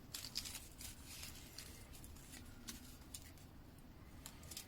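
Small shop-made low-angle block plane, blade bevel down and honed only on a 400 stone, shaving wood in a series of short, faint, hissing strokes, the first of them the loudest.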